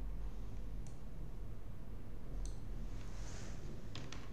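A few computer mouse clicks over a steady low hum: a single click about halfway through, then several close together near the end.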